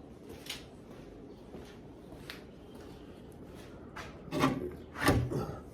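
Hands working a small hatch door loose in a boat floor: a few faint clicks and taps, then two short, louder scraping knocks near the end.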